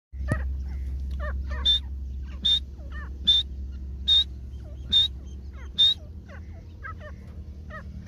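Grey francolins calling: six loud, sharp, short calls come about a second apart over softer chittering notes from the flock, with a steady low rumble underneath.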